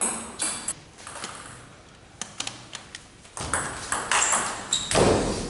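Table tennis ball clicking: a few scattered bounces, small taps on the table, then a fast rally of sharp pings off bats and table. Near the end there is one louder, duller thump.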